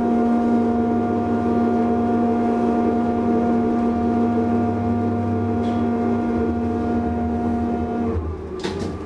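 1977 DEVE hydraulic elevator's drive humming steadily as the car travels between floors. The hum cuts off suddenly about eight seconds in as the car reaches the landing, and a single clunk follows.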